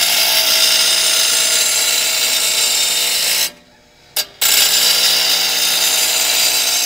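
Half-horsepower grinder grinding a steel mower blade, a loud steady hissing grind. It stops for about a second in the middle, with one short blip, then starts again.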